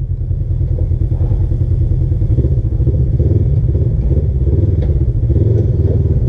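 A Polaris RZR side-by-side's engine running steadily, a dense low rumble with a fast pulsing beat and some light clatter.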